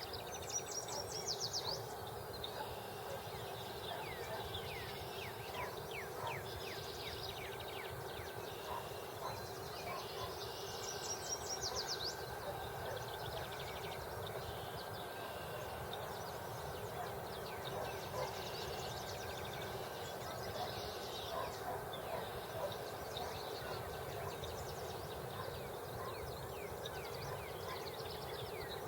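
Several wild birds singing and calling, with a quick high song phrase that returns roughly every ten seconds, over a steady low background hum.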